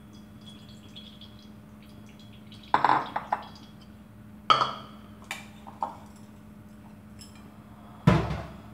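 Ceramic and glass bowls and a wire mesh sieve knocking and clinking as they are set down on a kitchen counter: a few separate clatters, the loudest near the end. A steady low hum runs underneath.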